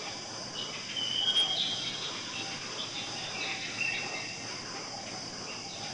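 Forest ambience of crickets chirring steadily in a high, even hiss, with two short high bird whistles: one about a second in, one a little past the middle.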